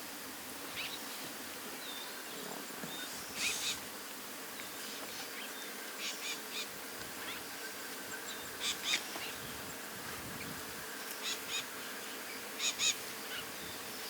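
A bird repeating short high chirps in quick groups of two or three, a group every two to three seconds, over a steady outdoor hiss.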